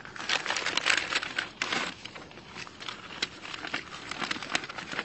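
Paper letters and envelopes rustling and crinkling as they are handled. The crackling is densest in the first two seconds, then thins to lighter scattered crackles.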